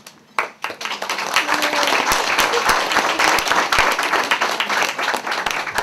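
Audience applauding: a crowd of people clapping, starting about half a second in and quickly filling out into steady, dense applause.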